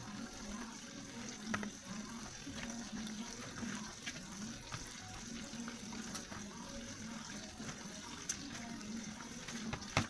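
Flour-coated chicken pieces frying in hot oil: a steady sizzle with scattered pops and crackles, one sharper pop near the end.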